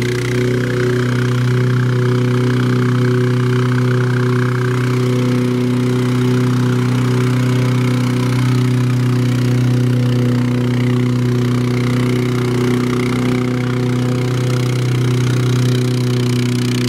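A vibratory plate compactor and a tractor running together while compacting a sand layer. They make a steady, constant engine drone with a strong low hum.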